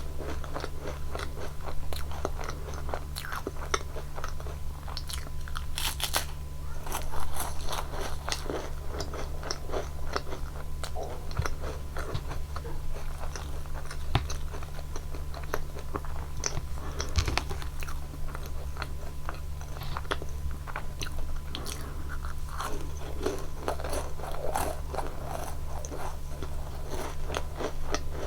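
Close-miked biting, crunching and chewing of Nunettine, a flaky sugar-glazed puff-pastry cookie, with dense small crackles, over a steady low hum.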